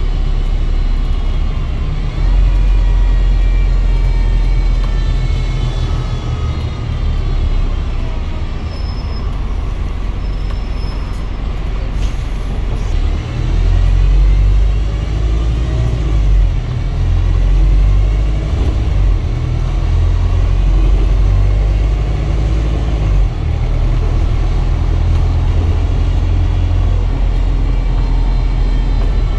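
Wrightbus StreetDeck double-decker bus running with a low engine rumble and weird whirly whining tones that slide up and down in pitch as it speeds up and slows. Two brief high beeps come about nine and ten seconds in.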